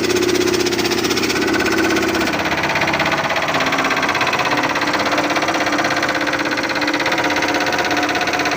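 A 20 HP air compressor running loud and steady with a fast mechanical clatter; its hum drops slightly in pitch about two seconds in.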